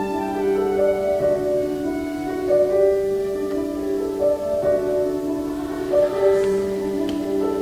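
Student instrumental ensemble with bowed strings playing the slow introduction to a choral song: held chords that change every second or so.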